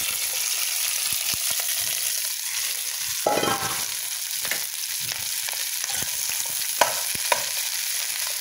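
Diced pork, cabbage and carrots sizzling steadily in a hot stainless steel pot, stirred with a metal utensil that clicks and scrapes against the pan; the stirring is briefly louder about three seconds in.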